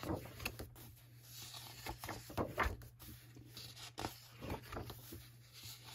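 Paper pages of a thick book being turned by hand: a run of rustles and soft flaps.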